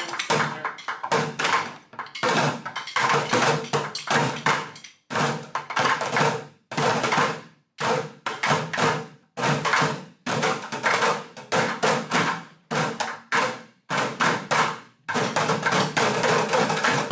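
A group of bucket drummers hitting drumsticks on upturned five-gallon plastic buckets, playing rapid rhythmic patterns in short phrases with brief pauses between them.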